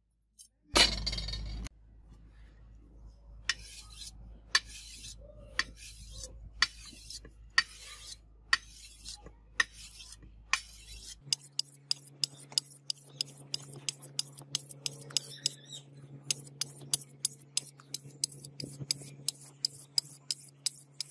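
Sharpening stone drawn in short strokes along the edge of a steel sword blade, each stroke a brief scrape of stone on steel. The strokes come about once a second at first, then quicker, two or three a second, in the second half, over a low steady hum. A short loud noise comes about a second in.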